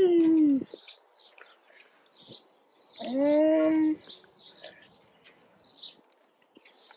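Small bird chirping repeatedly in short, high chirps, with a drawn-out human vocal sound about three seconds in.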